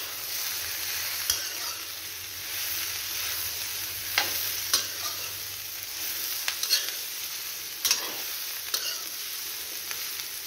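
Jackfruit and onion pieces sizzling in a little oil in a steel kadhai while a steel ladle stirs them continuously, with sharp scrapes and knocks of the ladle against the pan every second or two. The steady stirring keeps the dry-fried vegetable from sticking.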